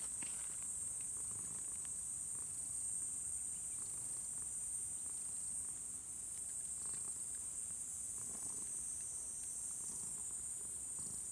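Steady, high-pitched outdoor insect chorus, a continuous shrill trill.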